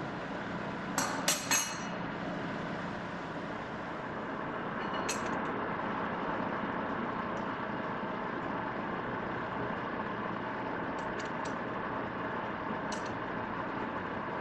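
Steady machine-shop running noise, with three sharp metal clanks about a second in and a few lighter metallic ticks later on.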